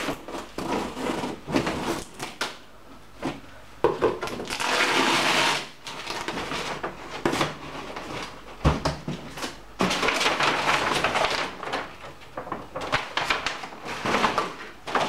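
A long cardboard shipping box being unpacked by hand: tape cut, flaps opened, and brown kraft packing paper crumpled and pulled out, giving irregular rustling and crinkling. There is a sharp knock about nine seconds in.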